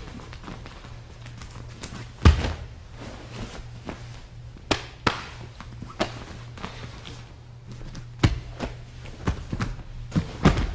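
Thuds and slaps on a padded training mat as two people grapple and move barefoot: one heavy thud about two seconds in, then scattered lighter knocks. A steady low hum runs underneath.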